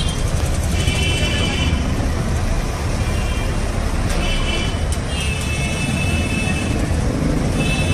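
Steady low rumble of road traffic and crowd noise on a busy street. A high-pitched tone of about a second recurs every second or two.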